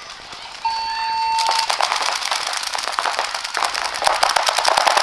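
A steady electronic start buzzer sounds for about a second, then many paintball markers open fire at once, a dense rattle of rapid shots starting about a second and a half in.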